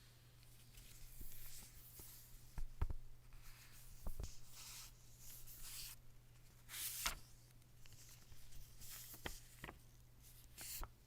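Packaging being handled during an unboxing: on-and-off rustling and peeling of paper and plastic, with several light knocks and clicks.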